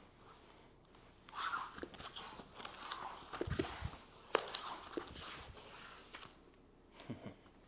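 Soft shuffling, brushing and light thuds of hands and feet on the floor as a person moves through a low crouched floor-work movement, with a couple of firmer thumps and a sharp tap near the middle.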